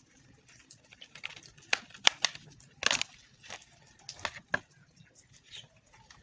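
Plastic snap clips of a tablet's casing clicking and cracking as the case is pried apart by hand: a run of sharp snaps, busiest in the middle few seconds.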